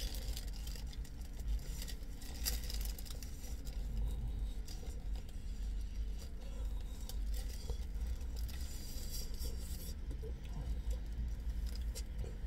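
A person eating a wrap: chewing and bites, with the paper wrapper crinkling now and then, loudest about 2.5 s in and around 9 to 10 s in. A steady low rumble sits underneath.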